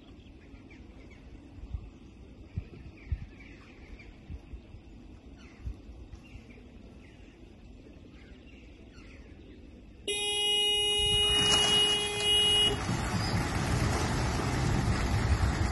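Low quiet for about ten seconds, then a horn sounds for about two and a half seconds as the release begins, and the loud, steady rush of thousands of racing pigeons' wings taking off from the transport lorries' crates follows.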